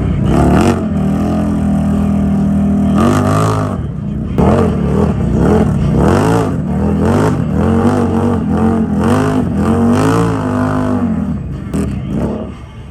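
ATV engine revving hard. It holds high revs for a couple of seconds, then is blipped up and down over and over before dropping away near the end.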